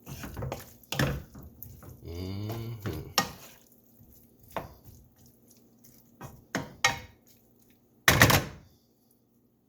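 A cooking utensil scraping and knocking against a skillet as chicken and onions are stirred by hand: a run of irregular clicks and scrapes, then one louder scrape lasting about half a second near the end.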